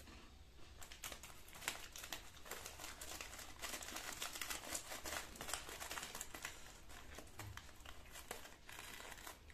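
Plastic rusk packet crinkling and rustling as it is handled and rusks are taken out of it, a continuous run of small crackles that is busiest in the middle.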